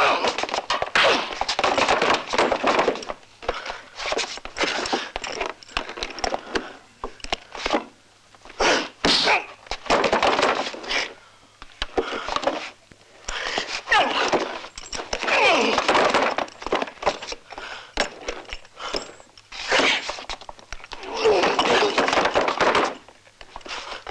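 Film fistfight sound effects: a rapid run of punches and heavy thuds, with crashing, breaking wood as bodies are thrown against furniture.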